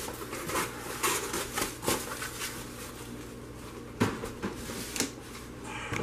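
Scattered light taps, clicks and rustles of small items being handled on a wooden counter, a cluster in the first two seconds or so and another about four to five seconds in.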